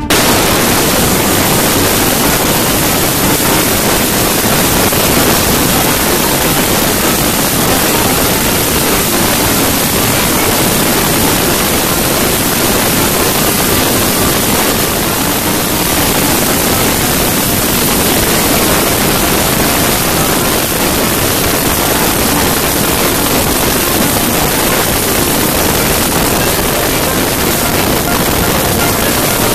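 Steady rush of wind buffeting a microphone held out of the window of a car driving at speed, with road noise underneath.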